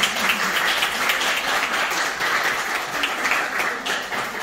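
A small seated audience applauding, a steady mass of hand claps.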